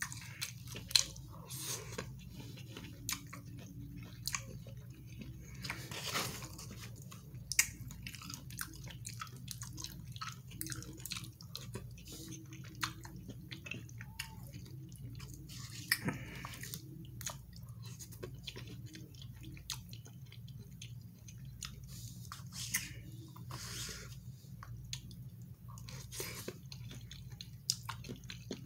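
Close-miked chewing of a person eating red beans and rice, with frequent short sharp clicks of the mouth and fork throughout. A steady low hum runs underneath.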